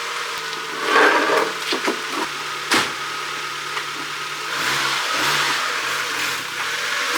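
NB Mazda Miata's four-cylinder engine running at idle, a steady low hum that turns unsteady about halfway through. A sharp click comes near the middle, and bursts of noise come a second in and again after the hum changes.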